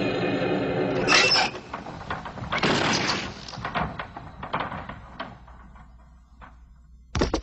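Anime slam-dunk sound effects. A held yell fades into a loud crash about a second in as the ball is slammed through the hoop. A second crash follows, then the rim and backboard clatter and die away. Near the end there are sharp knocks of the ball bouncing on the court.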